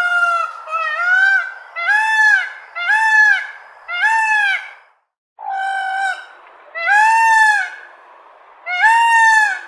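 Peacock calling: a series of eight loud, honking calls, each arching up and down in pitch, about one a second, with a short break about five seconds in.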